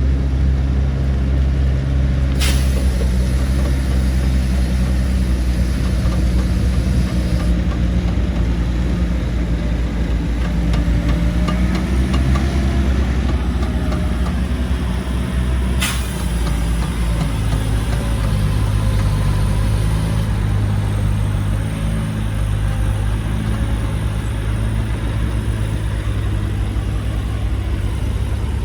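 Heavy diesel engines of a bulldozer and dump trucks at work, a loud, steady low drone whose pitch shifts about halfway through. Two brief sharp bursts cut in, one a couple of seconds in and one just past the middle.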